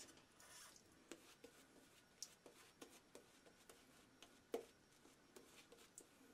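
Faint scratching and small wet ticks of a boar-bristle shaving brush working lather onto a face, with one louder click about four and a half seconds in.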